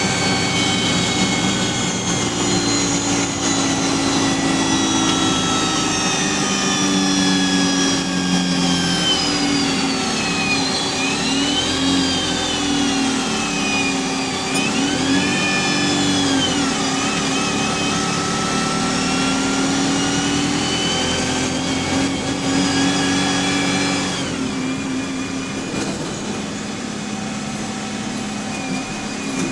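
Single-decker bus heard from on board, its Voith automatic gearbox whining over the engine. The whine falls in pitch as the bus slows, then rises again as it pulls away, twice around the middle; it goes quieter and steadier near the end.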